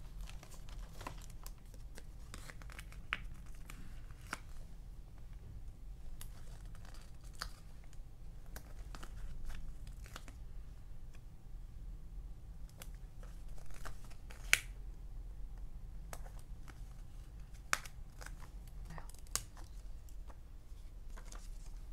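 Stickers and paper scraps being handled on a diary page: scattered light rustles, peels and taps as stickers come off their backing and are pressed down, with one sharper click a little past the middle.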